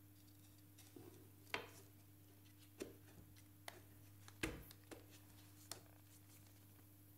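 Light handling noises: a handful of short knocks and clicks as hands shift and set down a speaker enclosure panel with a foam gasket ring, over a faint steady hum.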